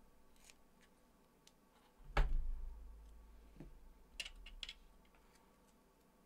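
Desk-top handling noises as double-sided tape is cut with scissors and stuck down: a few light snips and clicks, one loud knock about two seconds in, a smaller knock, then a quick cluster of small clicks a little after the middle.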